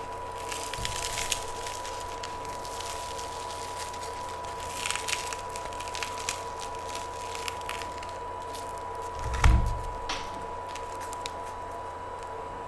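Close-up eating sounds: crunchy bites and chewing of a toasted grilled cheese sandwich, crackling in short clusters. There is a low thump about nine and a half seconds in, over a faint steady tone.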